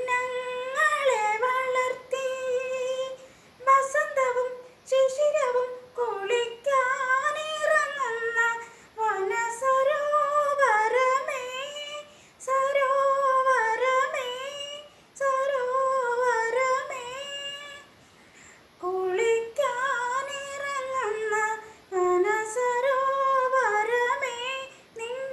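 A woman singing a Malayalam film song solo and unaccompanied. Her long held phrases are broken by short pauses for breath, with a slightly longer pause about three-quarters of the way through.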